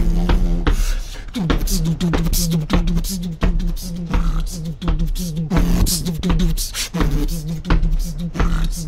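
Beatboxing: a hummed bass note held under sharp mouth-made kick and snare hits in a quick, steady rhythm. The bass note breaks off about a second in and comes back in short pulses.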